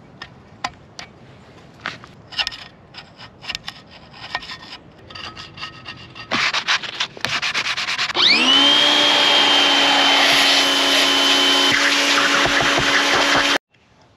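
Rag rubbing and hands handling an aluminium engine case half, with light clicks and knocks. About eight seconds in, a small power tool spins up with a quickly rising whine and runs steadily at a high pitch while cleaning the engine case, then cuts off suddenly near the end.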